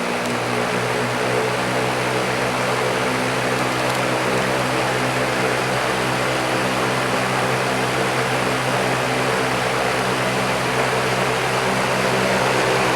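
WeatherWorks DB888 three-blade box fan running on its high setting: a steady rush of air over an even motor hum.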